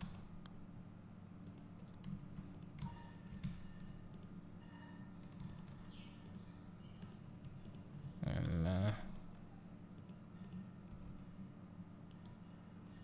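Sparse computer keyboard and mouse clicks over a steady low hum. About eight seconds in there is a short, louder vocal sound.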